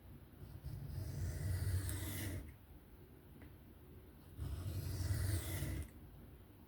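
Knife blade drawn across a coarse 140-grit sharpening stone in freehand passes: two gritty scraping strokes, each about two seconds long, with a short pause between them.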